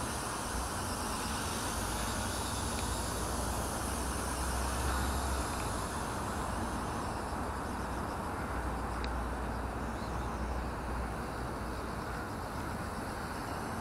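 Steady rushing outdoor noise with gusts of low rumble, wind buffeting the microphone, over the whir of a WLtoys V950 RC helicopter's rotors as it flies.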